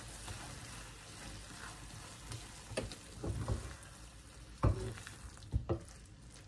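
Diced apples in butter caramel sizzling in a frying pan as a silicone spatula stirs them, the burner just switched off. A few short knocks of the spatula against the pan, the loudest about two-thirds of the way through.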